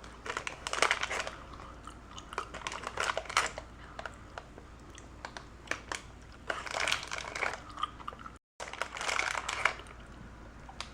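Close-miked chewing of gummy fruit snacks, with bursts of crinkling from the plastic snack pouch, coming in short clusters every couple of seconds.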